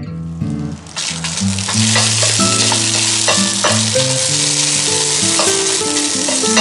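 Bacon pieces frying in a hot cast iron Dutch oven: a loud, steady sizzle that starts about a second in, with the scrape of a wooden spatula stirring them now and then. Acoustic guitar music plays underneath.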